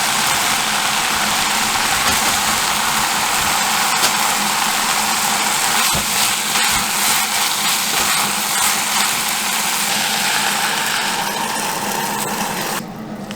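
An engine running steadily at constant speed, a loud even noise with a steady hum underneath. It cuts off abruptly near the end.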